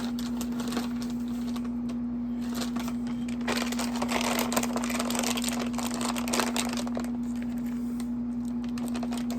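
Crisp crunching and crackling from rippled potato chips and their snack bag being handled and eaten, busiest about halfway through. A steady air-conditioner hum runs underneath.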